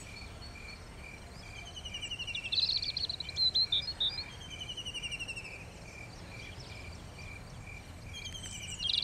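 Rural nature ambience: a cricket chirping steadily about twice a second, with birds calling over it and a louder flurry of bird calls about three seconds in and again near the end, over a low rumble.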